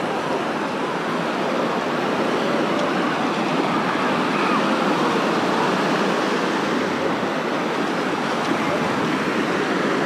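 Crowded beach ambience: small waves washing on the sand with the steady babble of many bathers' voices.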